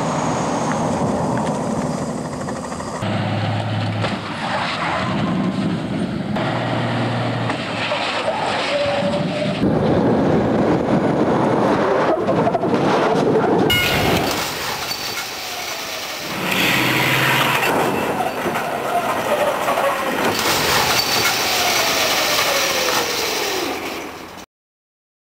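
Truck and car noise from crash-test footage, heard in several abruptly cut sections, then a sudden cut to silence near the end.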